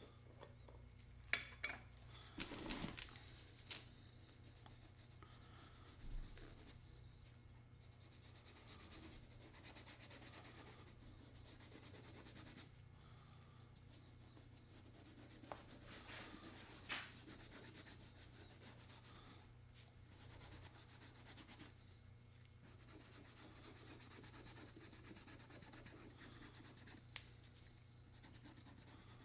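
Faint, soft rubbing of nitrile-gloved fingers working shoe cream into a leather boot, with a few light clicks in the first few seconds and once more about two-thirds of the way through.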